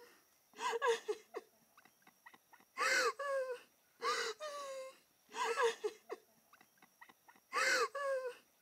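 A person crying in distress: short, high, wavering sobbing cries every second or two, with shaky gasping breaths between them.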